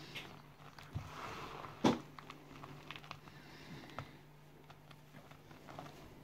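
Dry cornstarch crunching and crumbling between fingers over a bowl: soft crackly rustling with a few sharper clicks, the loudest about two seconds in. A faint steady low hum runs underneath.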